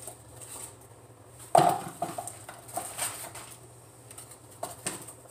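Kitchen handling sounds: a sharp knock with a brief ring about a second and a half in, then a few light taps and clicks.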